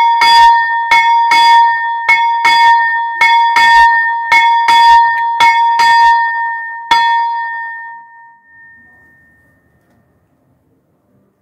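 The small 25 kg bronze bell Umieračik, tuned about c³, ringing: its clapper strikes about twice a second in an uneven swing rhythm, then the strokes stop about seven seconds in and the last one rings away over a couple of seconds.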